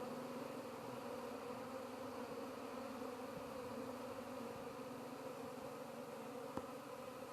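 A mass of honey bees buzzing in a steady, unbroken hum.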